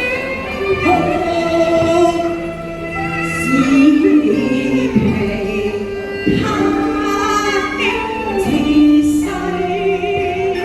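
Cantonese opera singing: a woman singing in the pinghou natural-voice style over instrumental accompaniment, drawing out long held notes that step to a new pitch every second or two.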